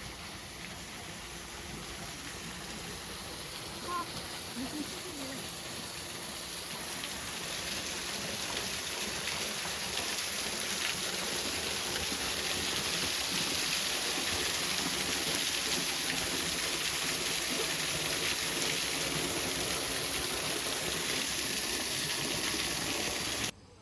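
Water spraying with a steady hiss, growing louder over the first several seconds, then holding steady until it cuts off abruptly near the end.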